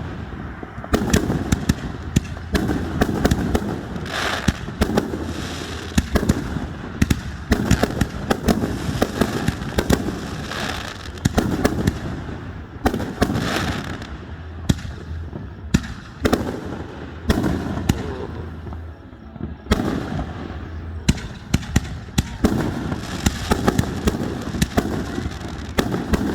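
Fireworks display: a steady run of aerial shell bursts, booming and crackling several times a second, with echoing rumble between them.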